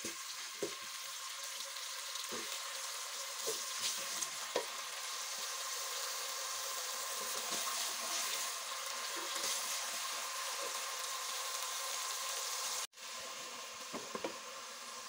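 Sliced onions sizzling in hot oil in a metal pot, stirred with a wooden spatula that knocks against the pot now and then. The sizzle cuts out for an instant near the end, then carries on with a couple more knocks.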